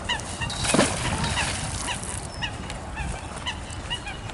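Geese honking repeatedly, many short calls overlapping, over a low steady rumble, with one brief loud noise burst a little under a second in.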